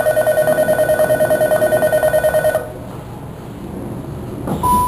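Electronic departure buzzer at a Japanese railway station: a rapid, high-pitched trill of about ten beeps a second, lasting close to three seconds, then stopping. The stopped train hums quietly, and near the end a higher chime tone begins as the doors prepare to close.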